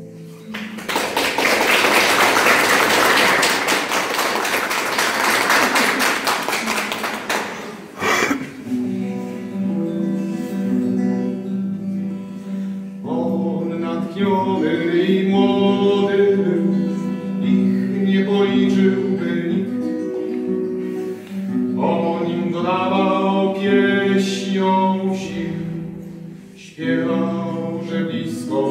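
Classical guitar: a piece ends, then about seven seconds of applause, then a firm plucked chord about eight seconds in starts a new piece of fingerpicked notes and chords.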